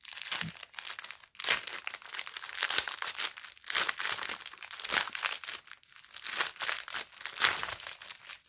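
Thin clear plastic packaging crinkling as hands handle and open it to take out small bags of diamond-painting rhinestones, with a few short pauses.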